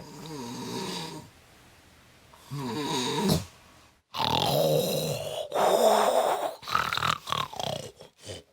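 A woman snoring heavily in her sleep: a series of snores with short pauses between, the later ones in the second half longer and louder.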